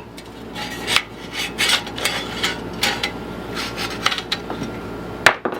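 Recoil starter of a Craftsman push mower being pulled out and rewinding on its spring: the rope rubs and rasps through the housing, with irregular clicks and one sharper click near the end.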